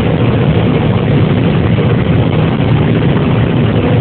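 John Deere 9770 combine running steadily while harvesting corn, heard from inside the cab as an even, unbroken drone of engine and machinery.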